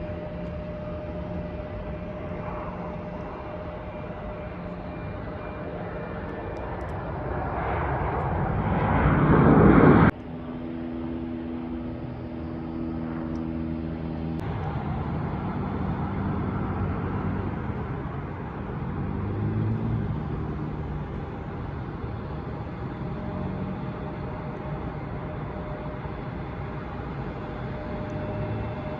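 Jet aircraft engine noise building over several seconds to a loud peak as the plane passes close, then cut off abruptly. Afterwards a lower, steadier engine rumble with some steady and gliding tones.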